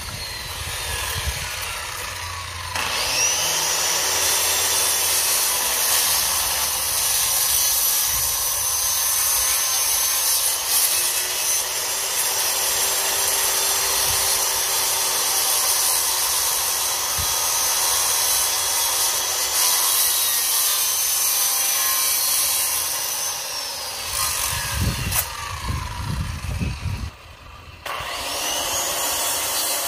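Electric power saw cutting wood: the motor whines up to speed about three seconds in, runs steadily for about twenty seconds, winds down, and is started again near the end.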